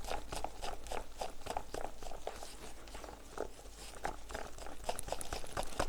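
Light, irregular taps and scrapes of a wooden spatula against a disposable cup of freshly mixed epoxy resin.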